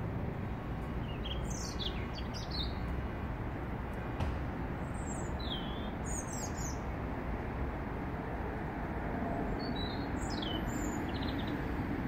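European robin singing: three short phrases of thin, high, warbling notes a few seconds apart, over a steady low background rumble.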